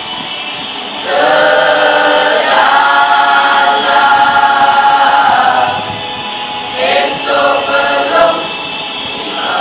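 Mixed youth choir singing unaccompanied: a long phrase starting about a second in, then a few short phrases near the end, over a steady hiss.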